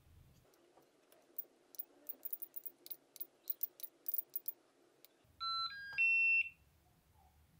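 A quick irregular run of sharp clicks, then an electronic device beeping three short tones that step up in pitch, the last and highest the loudest.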